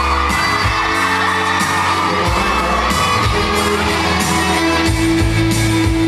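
Thai pop song with male group vocals, played loud over a stage sound system during a live performance. A steady beat and bass line run under the singing.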